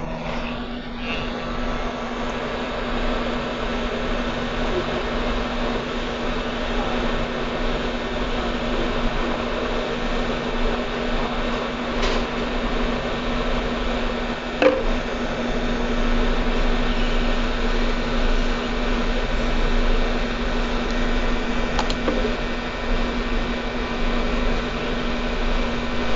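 Hot air rework station blowing steadily with a low hum under the airflow, heating the board to solder a capacitor back onto a laptop motherboard. A single light click about halfway through.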